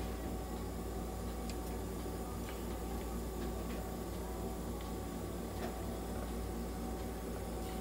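Nebulizer machine running steadily with a low hum, delivering medicated mist to a cat for inhalation therapy; a few faint, irregular ticks sound on top.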